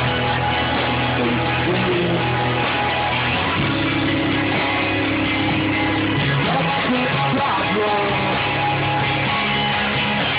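Rock band playing a song, with guitar and a sung vocal line.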